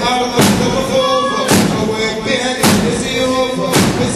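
A chanted Shia mourning lament (latmiya) with a crowd of mourners beating their chests in unison, one loud slap about every second, keeping time with the chant.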